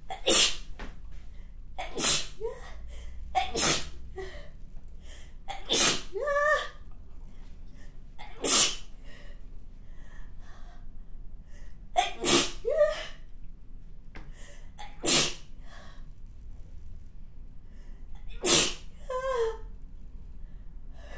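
A person sneezing over and over, eight loud sneezes a couple of seconds apart, several trailing into a short voiced sound. The sneezes are set off by chhinkni sneezing powder.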